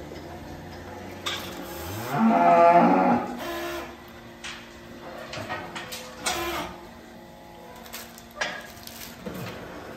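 A dairy cow moos once, loudly, about two seconds in, its pitch rising at the start of the call. Short knocks and clanks come now and then through the rest.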